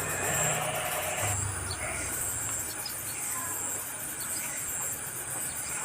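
Insects, likely crickets, trilling steadily in a fast high-pitched pulse, with a hiss that stops about a second and a half in and a few faint short chirps.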